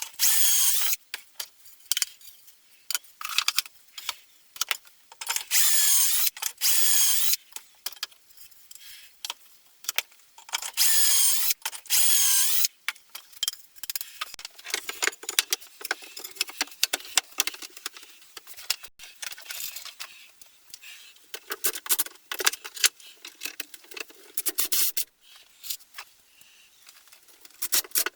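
Power drill running in three short bursts of a second or two each, then quieter rubbing and knocking from handling work.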